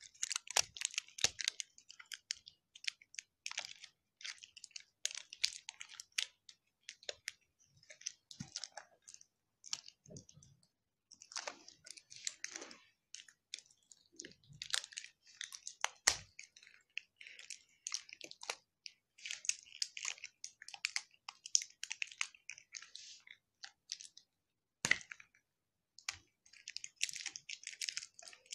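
Toy packaging being wrestled open by hand: irregular bursts of crinkling and crackling, with a few sharper clicks and snaps.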